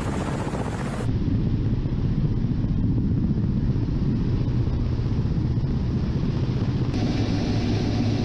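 Attack helicopter's rotors and turbine engines droning steadily with a low, even rumble. It is heard first from outside as the helicopter passes overhead, then from inside the cockpit about a second in, where the sound turns duller.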